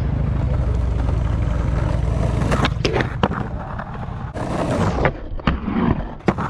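Skateboard wheels rolling with a steady rumble, then several sharp clacks of the board and a short scrape a little after the middle, as tricks are popped and landed.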